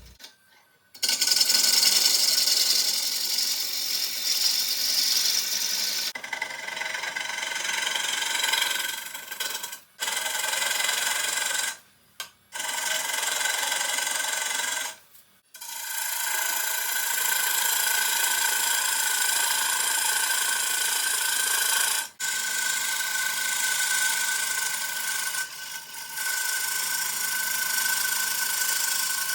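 Turning tool cutting a wet bowl blank spinning slowly on a midi lathe: a steady scraping hiss of wood being cut, with a thin high tone running under it. It breaks off abruptly several times and resumes.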